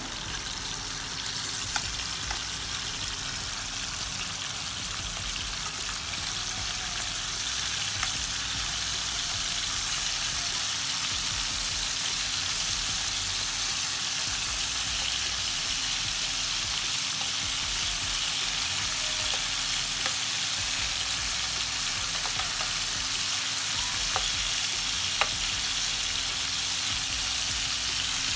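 Curry-marinated chicken pieces shallow-frying in oil: a steady sizzle with a few faint clicks and pops.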